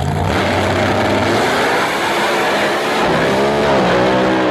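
A drag racing car's engine running at full throttle, cutting in abruptly at the start. In the last second and a half a clear engine tone comes through, dipping briefly in pitch and rising again.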